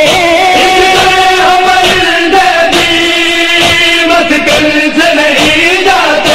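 Wordless sustained singing in a noha, an Urdu mourning lament: voices holding long notes that glide slowly from one pitch to the next, without any words.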